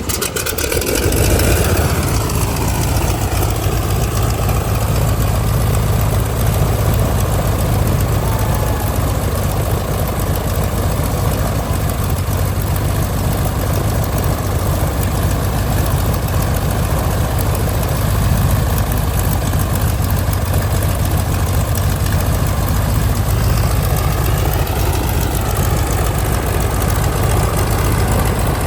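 Vintage WWII trainer's radial aircraft engine starting up, catching at once and settling into a steady idle.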